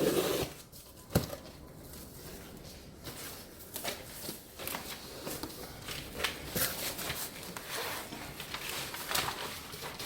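Cardboard shipping box being opened and unpacked by hand: irregular rustling and scraping of cardboard and packing with scattered clicks, and one sharp knock about a second in.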